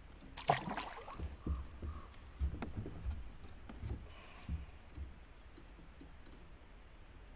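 A small fish is dropped back into the lake with a light splash about half a second in. A few soft knocks and clicks follow at the kayak over the next few seconds, then it goes quiet.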